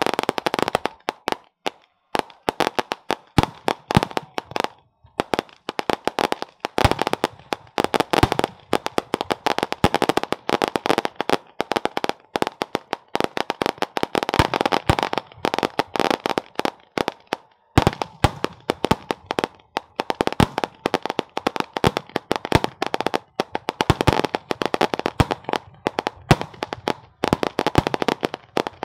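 Strings of firecrackers hung beneath a giant paper hot-air balloon going off in a rapid, irregular crackle of pops, broken by a few short pauses.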